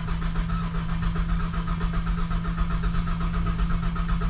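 Starter cranking the 2007 GMC Acadia's 3.6-litre V6, turning it over at an even rapid beat without it catching. It is a no-start after months of sitting, which the owner puts down to the tank being nearly out of gas.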